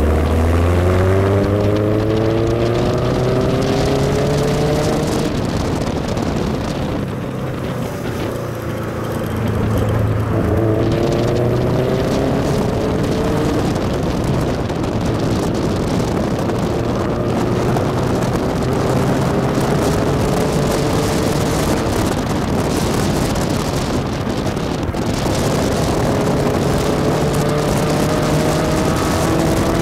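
Tiger sports car's engine accelerating hard, heard from inside the car. Its pitch climbs, falls away at gear changes about six and twenty-four seconds in and climbs again, with a long steady climb in the middle, over constant wind and road noise.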